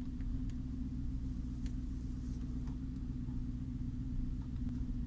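2016 Dodge Challenger's 5.7 L Hemi V8 running on the move, a steady low rumble with a constant low-pitched whine over it. The owner calls the whine a weird, not-normal noise and does not know its cause.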